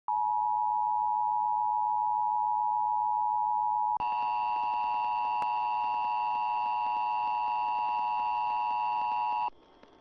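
Emergency Alert System attention signal: a loud, steady two-tone electronic alert. About four seconds in it changes to a harsher chord of several steady tones, which cuts off just before the end.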